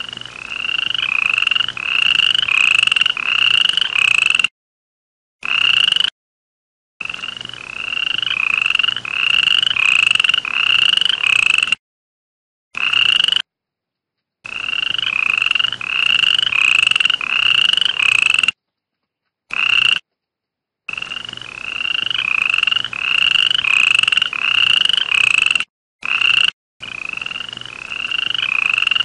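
A frog calling: a repeated croaking note about twice a second, in runs of a few seconds that cut off suddenly into dead silence several times.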